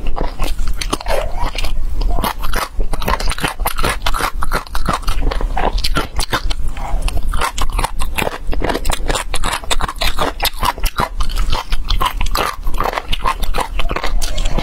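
Close-miked eating sounds: continuous wet chewing, biting and crunching of spicy chicken feet in chili sauce, a fast, irregular run of sticky clicks and smacks.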